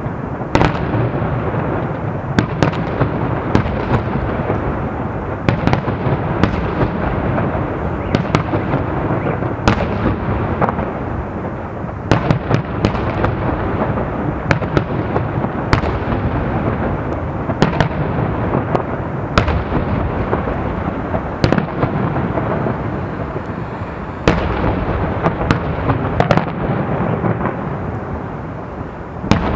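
Fireworks salute going off: sharp bangs every second or two over a continuous rumble of bursting shells.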